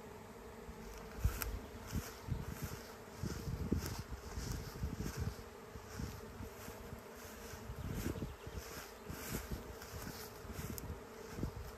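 A large honeybee swarm in flight, the steady massed hum of thousands of bees as the colony, with its queen, moves to a new home. Irregular low rumbles of wind on the microphone rise and fall over it.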